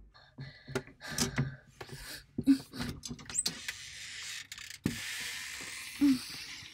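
Irregular clicks, knocks and rustling from a person moving about inside a wardrobe and bumping its panels. A steadier rustle of clothing and handling noise sets in about halfway through.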